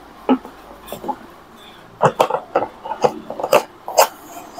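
Irregular sharp clicks and knocks of hard plastic as the lid of a white plastic insulated kettle is handled and twisted.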